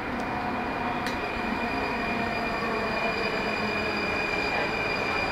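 Vagonmash S81 metro car heard from inside as it brakes into a station. The running gear rumbles under a steady high-pitched squeal from the wheels and brakes.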